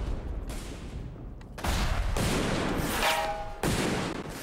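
Dramatised rifle fire: several sharp shots over a low battle rumble. About three seconds in, a bullet strikes the steel sniper's plate and ricochets, with a whine falling in pitch that settles into a metallic ring.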